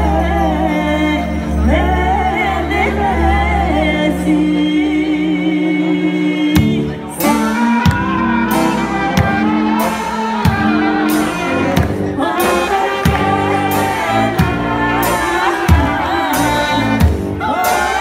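Live Balkan brass band music: two women singing over long held notes from brass horns. About six and a half seconds in, a large bass drum struck with a mallet comes in with a steady beat and the brass turns rhythmic under the voices.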